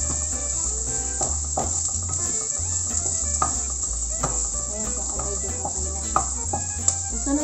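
Chopped onion and garlic sizzling in hot oil in a nonstick pan, with a steady high hiss. A wooden spatula stirs and scrapes through it, making short knocks about once a second.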